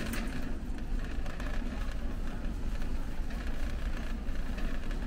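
Steady low rumble and hum of a warehouse store's interior, with faint scattered clicks and clatter.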